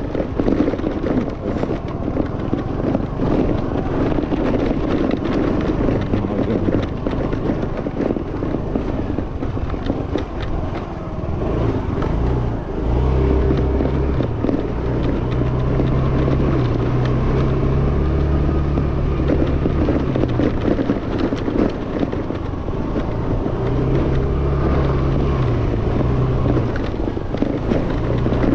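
Yamaha Fascino scooter's single-cylinder engine running steadily on the move, over a continuous rush of wind and road noise. Its low hum grows stronger about halfway through.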